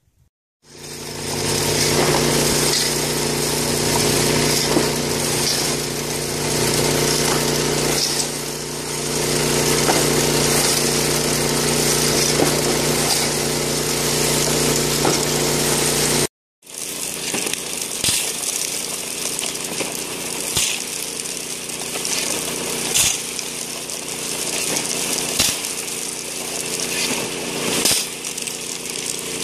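Small engine-driven water pump running steadily while water rushes through a gold sluice box. About halfway through the sound cuts and resumes closer to the hose outlet, where water gushing and splashing into the sluice's header box is louder and the engine fainter.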